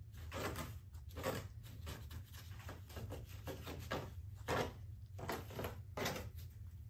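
Stain being rubbed into a rough plaster rock face: about a dozen irregular scratchy rubbing strokes over a steady low hum.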